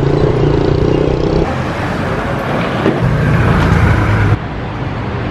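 City street traffic: car engines running close by, a steady low hum with a hiss of noise over it. The sound changes abruptly about a second and a half in, and drops in level past four seconds.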